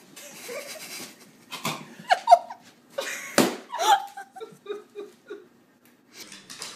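A balloon bursts with a sharp pop as a dog bites it, about halfway through. It is preceded by a loud short cry and followed by a run of short laughs.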